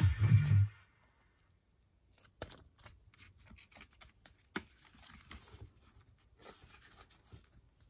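Background music stops abruptly under a second in. After a short silence come faint rustles and light clicks of hands handling a paper CD booklet and a plastic jewel case.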